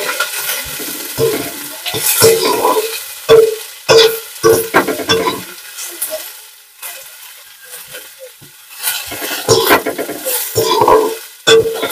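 Sliced onions and garlic frying in a steel kadai, sizzling, while a perforated steel spatula stirs them with repeated scraping strokes against the pan. The stirring eases off through the middle and picks up again near the end.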